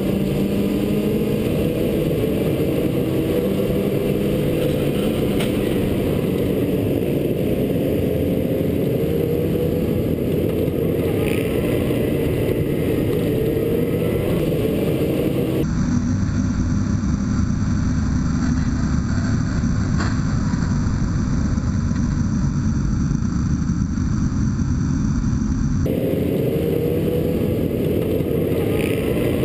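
Motorcycle engine running and revving as the bike is ridden, heard from a camera mounted on the bike, its pitch rising and falling with the throttle. About sixteen seconds in, the sound turns abruptly thinner and more muffled, and switches back about ten seconds later.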